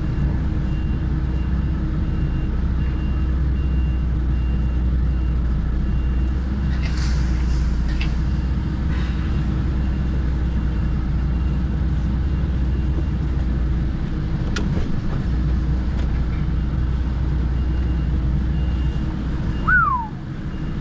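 HGV diesel engine running steadily at low revs, with a faint reversing beeper sounding at even intervals. Near the end there is a short, loud squeal that falls in pitch.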